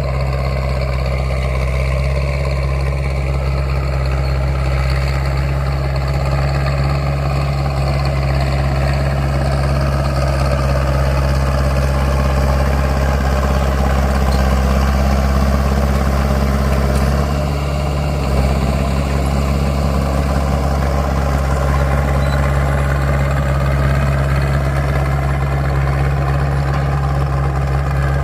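Caterpillar D3C bulldozer's diesel engine running steadily, its pitch drifting slightly up and down, with a brief drop about two thirds of the way through.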